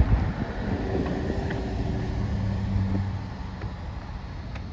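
A car's engine and road rumble heard from inside the car, with a steady low hum strongest about two to three seconds in, then easing off.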